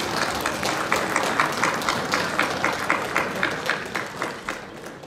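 Audience applauding, the clapping falling into a steady beat of about four claps a second, then fading out near the end.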